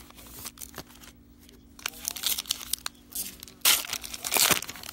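Foil wrapper of a Diamond Kings baseball card pack being torn open and crinkled, in short rustling bursts, loudest in the last second or so.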